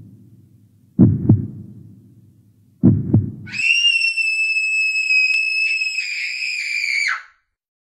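Heartbeat sound effect: two double thumps about two seconds apart. Then a long high-pitched scream is held for about three and a half seconds and trails off at the end.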